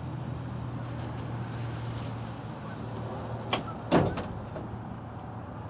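A click and then a heavy metallic clunk about three and a half to four seconds in, from the truck door being worked while its sagging welded-on hinges are bent to lift it. A steady low hum runs underneath.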